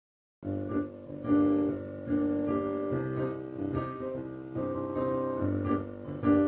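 Instrumental background music with a melody of sustained pitched notes over a low bass line, starting about half a second in.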